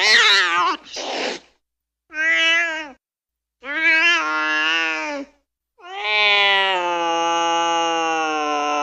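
Angry cat caterwauling: a harsh screech and a short hiss, then a run of drawn-out yowls, each longer than the last, the final one held for about three seconds.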